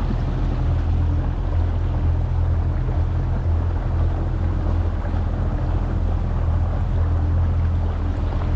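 A Crestliner boat's outboard motor running at a steady speed, an even low drone, with water rushing along the hull.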